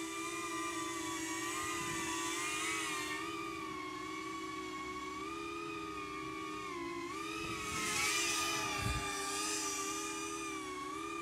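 BetaFPV Pavo25 V2 cinewhoop in flight: its brushless motors and ducted 2.5-inch propellers give a steady whine that wavers slightly in pitch with throttle. The whine dips briefly about seven seconds in and swells a little about a second later.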